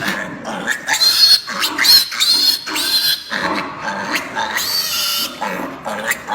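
Piglets squealing and screaming in distress, shrill cries that rise and fall again and again. These are the cries of piglets undergoing painful procedures done without anaesthesia.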